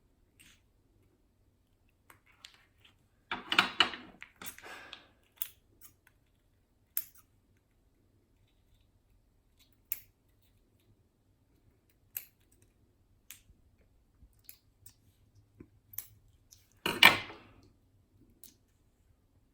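Hands working plastic slime packaging: scattered sharp clicks and snips, with two louder crinkling bursts, one about three and a half seconds in and a louder one near the end.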